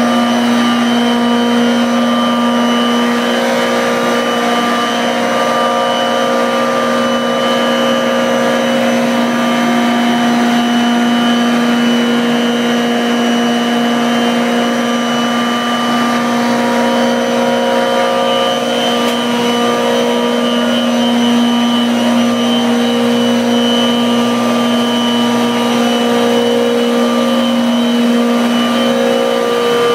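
Howden refrigeration compressor on a chiller running steadily: a constant machine noise with a low hum and several higher steady tones over it.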